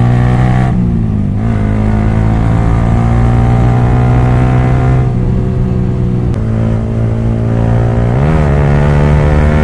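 Yamaha R15 V3's single-cylinder engine running loud through an exhaust with both dB killers removed, pulling steadily under way. Its pitch drops about a second in and wavers, then steps up, near the end.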